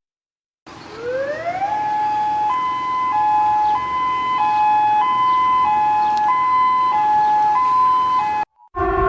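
A two-tone siren: after a short silence it glides up in pitch for about a second, then alternates evenly between a lower and a higher tone, switching about every two-thirds of a second, and cuts off suddenly near the end.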